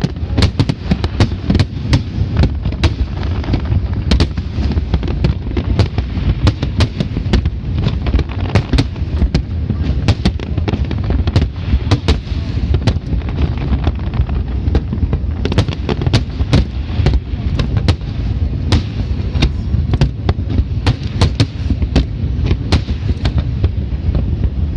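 Large fireworks display: a continuous barrage of sharp cracks and bangs, several a second, over a heavy low rumble of booming shells.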